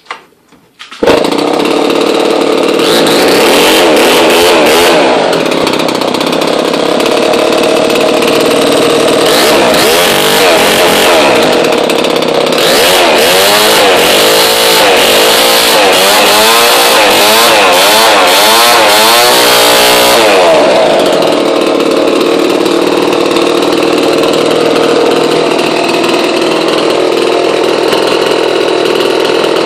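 Homelite XP1000 two-stroke chainsaw engine, driving a post hole auger, catches suddenly about a second in and runs loud. Between roughly 9 and 20 seconds its pitch rises and falls again and again as the throttle is worked, and after that it runs steadier.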